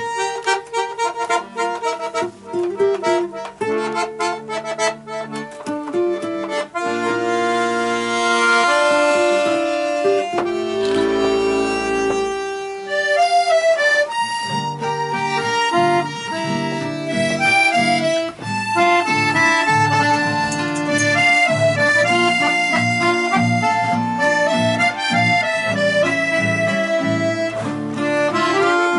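Chamamé played by a small acoustic ensemble: piano accordion and button accordion lead, with classical guitar, flute and violin. Quick strummed guitar chords stand out in the first several seconds, then the accordions and melody instruments carry longer held notes.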